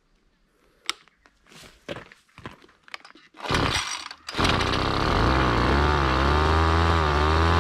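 Small engine of a Koshin EP-10P engine power sprayer being recoil-started. A few light clicks are followed by a pull about three and a half seconds in, and the engine catches just after four seconds. It then runs steadily, its pitch wavering a little.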